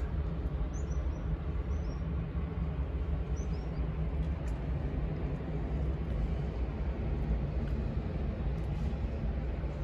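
Steady low machine hum, with a few faint high chirps in the first few seconds.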